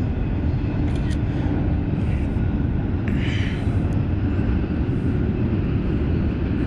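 Wind buffeting the phone's microphone: a steady low rumble, with a few faint clicks from handling the rod and fish.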